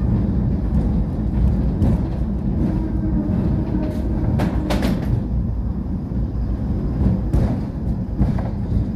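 Heritage electric tram running along street track, heard from its upper deck: a steady low rumble of wheels on rail, with a few sharp knocks and rattles.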